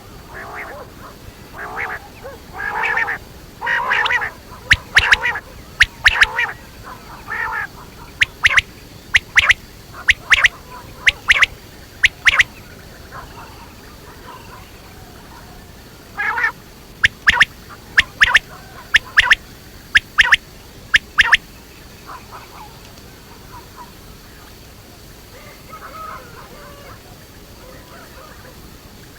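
Quail calling: short, sharp calls repeated about once a second in two runs with a pause between, after a few softer, lower calls at the start.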